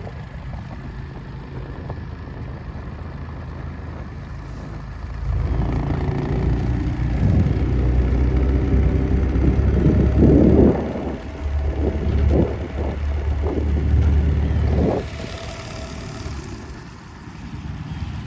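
Small outboard motor running, louder for about ten seconds in the middle as it speeds up, then easing back, with wind buffeting the microphone.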